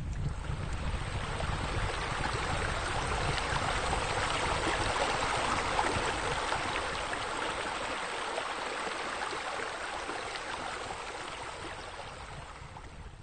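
Water spilling from a water wall's sheer-descent spillways into a spa: a steady splashing rush that swells through the middle and fades toward the end.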